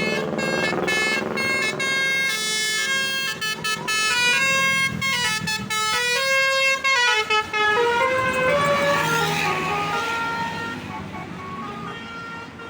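Bus 'telolet' musical air horn playing a tune, its notes stepping up and down in pitch one after another, fading near the end.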